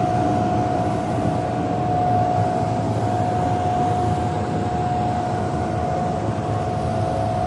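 Snow-making machine running steadily: a constant whine over an even rushing noise as it blows out powdery snow.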